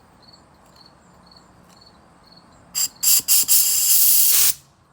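Compressed-air sandblast gun (Harbor Freight Central Pneumatic gravity-feed) hissing as it is triggered: three short blasts, then about a second held open. The air is carrying aluminum oxide grit out of the nozzle at about 90 psi.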